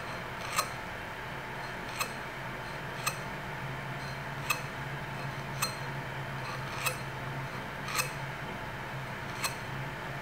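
Conical honing stone worked in and out of the cutting tip of a steel increment borer bit, giving a light clink about every second and a bit, eight or so in all.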